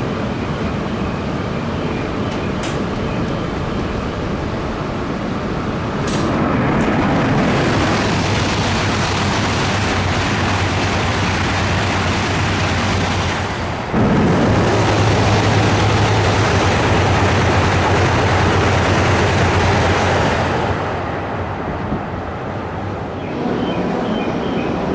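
Shinkansen bullet trains, E5 series among them, passing at high speed: a loud, steady rush of air and rail noise with a low hum under it. It grows louder about six seconds in, jumps sharply louder at about fourteen seconds, and eases off again after about twenty-one seconds.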